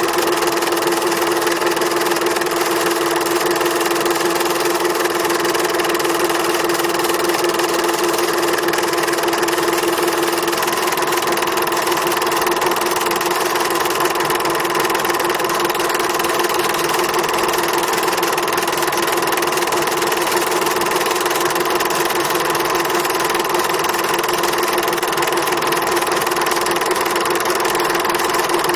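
A motor running at a perfectly steady speed, an even mechanical hum with no revving or gear changes. About ten seconds in, its lower tone fades and a higher one carries on.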